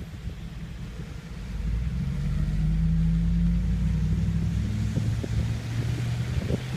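A motor vehicle driving past: its low engine hum swells about two seconds in, holds steady, then eases off.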